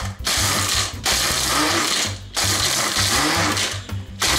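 Small electric food chopper crushing ice cubes, run in four pulses of about a second each with short pauses between them.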